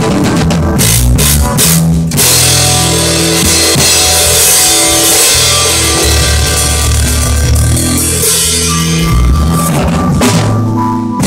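Rock-style music driven by a full drum kit, with bass drum hits and a steady wash of cymbals over held low bass notes. There is a brief break in the playing about two seconds in.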